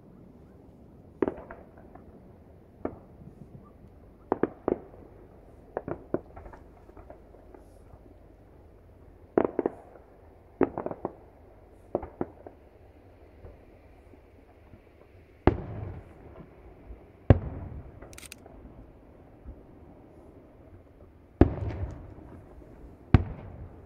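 Aerial firework shells bursting, heard from about a kilometre away: a string of sharp bangs at irregular intervals, several in quick pairs. The heaviest, deeper booms come in the second half.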